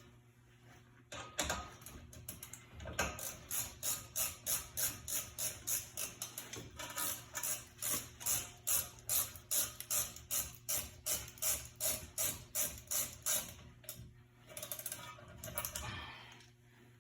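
A hand tool worked back and forth on a car's rear brake assembly: quick repeated metallic strokes at about three a second, with irregular clatter before and after.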